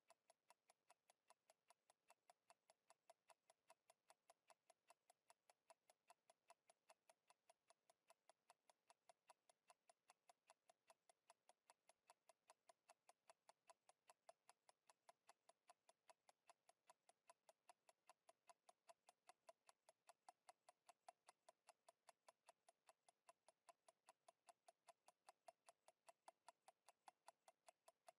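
Faint, even mechanical ticking at a fast steady rate, about three and a half ticks a second, with a faint steady hum under it.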